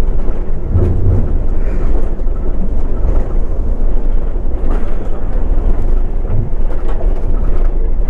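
Moving bus heard from inside, a loud steady low rumble of engine and road noise.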